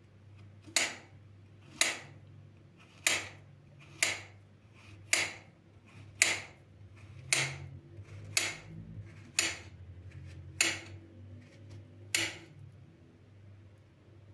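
A series of about eleven sharp taps of a hard object, coming roughly once a second, over a faint steady hum.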